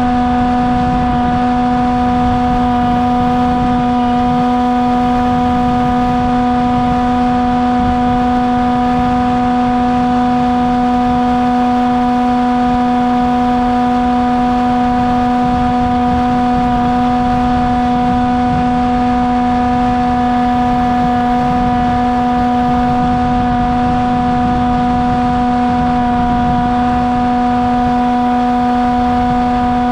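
Electric motor and propeller of a Bixler RC foam plane running at a steady throttle, a constant whine with rushing wind noise underneath, heard from a camera mounted on the plane.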